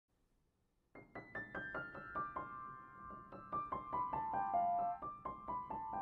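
Solo piano music that starts about a second in, playing quick runs of single notes that step downward in pitch, with each falling run starting again from the top.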